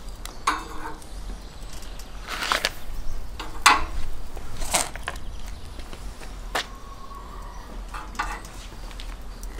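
Metal hooks and skewers clinking and scraping against the steel crossbar rack at the mouth of a ceramic tandoor as chicken pieces are hung inside: a string of separate clinks and knocks, one ringing on briefly nearly seven seconds in.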